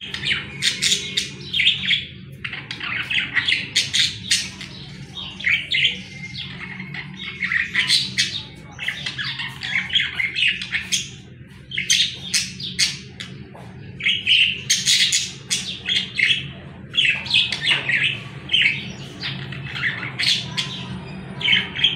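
Budgerigars chirping and chattering: many quick, high chirps and squawks in repeated clusters.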